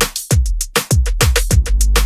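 Electronic background music with a fast, heavy drum-machine beat and deep bass kicks.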